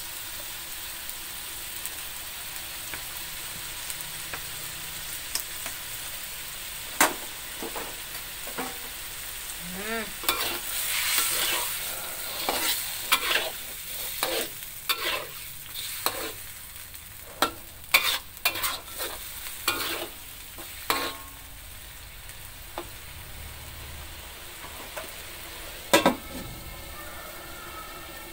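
Metal spatula stirring and scraping in an aluminium wok of shredded tuna simmering in sweet soy sauce, over a steady sizzle, with a busy run of scrapes and clanks through the middle. Near the end comes a single loud metal clank as the aluminium lid is put on the wok.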